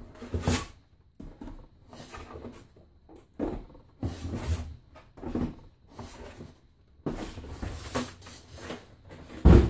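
Small cardboard hard-drive boxes being lifted out of a larger shipping box and set down on a wooden table: irregular cardboard scrapes, rustles and knocks, with one loud thump near the end.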